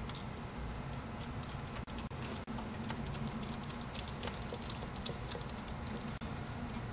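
Steady low background hum with scattered faint light clicks and ticks, broken by a few sudden brief dropouts about two seconds in and again near the end.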